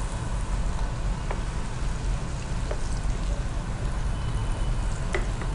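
Prawn pakodas deep-frying in a pan of hot oil, a steady sizzle, with a few light clicks of the spoon against the pan as they are lifted out.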